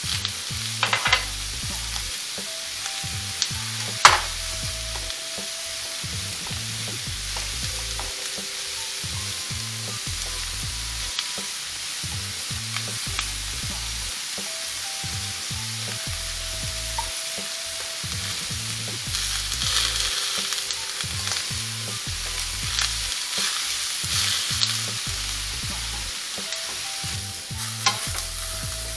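Shrimp and vegetables sizzling steadily on a flat-top hibachi griddle, with a metal spatula clinking and scraping on the griddle now and then: one sharp clink about four seconds in, and busier scraping and stirring in the last third.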